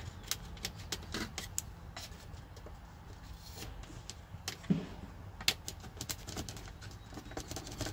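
Small screwdrivers poking and scraping in the release slots of a Ford E-Series van's factory radio, working it loose: a run of light clicks and scratches on plastic and metal, with two sharper clicks a little past the middle.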